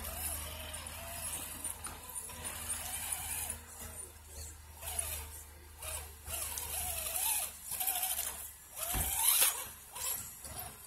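Axial SCX10.2 RC rock crawler's electric motor and drivetrain whining as it crawls through snow, the pitch wavering up and down with the throttle and rising, louder, about nine seconds in.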